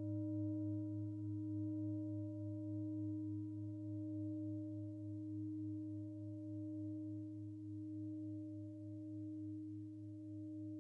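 A large metal singing bowl ringing on after a single strike: a deep hum with a few higher overtones above it, wavering gently and slowly fading.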